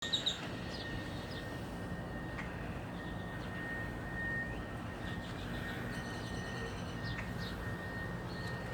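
Scattered short bird chirps over a steady background hum and a faint, steady high-pitched whine.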